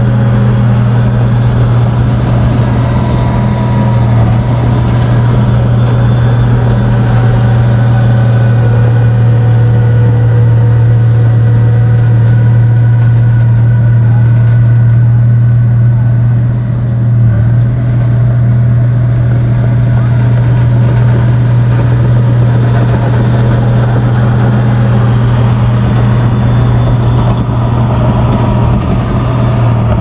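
Komatsu bulldozer's diesel engine running loud and steady at a constant speed, with a brief dip in loudness about seventeen seconds in.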